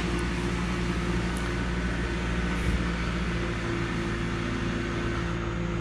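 Electric motors of a Cessna 310's retractable landing lights running steadily as the lights retract, a constant low hum.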